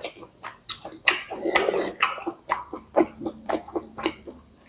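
A person chewing a mouthful of pad see ew (stir-fried wide rice noodles with pork and Chinese kale) close to the microphone: wet smacking and clicking, about two to three chews a second, with a longer, denser wet stretch about a second in.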